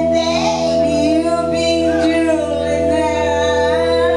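Live rock band playing with a singer: long steady held notes sound under a voice that bends in pitch and breaks into phrases.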